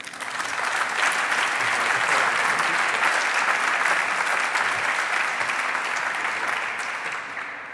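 Audience applauding, starting right after a speaker's closing thanks, holding steady and then fading away near the end.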